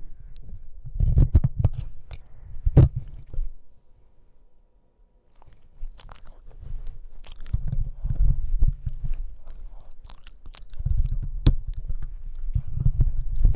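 Boston Terrier puppy chewing and gnawing directly on a shock-mounted microphone, heard right at the capsule: irregular low bumps and rumbles with sharp clicks and scrapes of teeth on the mic, dropping to a brief lull about four seconds in before the chewing resumes.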